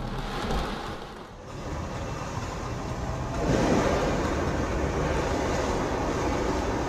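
Rushing storm wind and rain at first, then steady road and engine noise of a car driving, heard from inside the car through a dashcam. The driving noise gets louder about three and a half seconds in and stays even after that.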